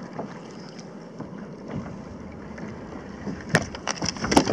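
Steady wind hiss on the microphone, then near the end a quick run of sharp knocks as a freshly landed whitemouth croaker thumps against the plastic deck of a sit-on-top kayak.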